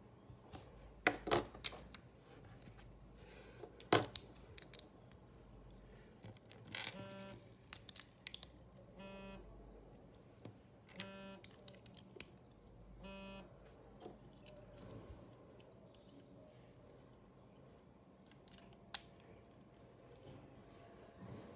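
Plastic LEGO pieces clicking and rattling as they are handled and pressed together. The sharp clicks and short rattles come irregularly, loudest around a second in and again about four seconds in.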